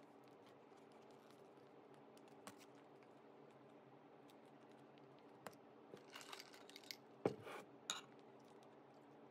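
A quiet room with a faint steady hum. Late on come crinkling and a few small clicks and knocks as a plastic cold-brew coffee pouch is handled over a plastic tumbler of ice, with one sharper knock among them.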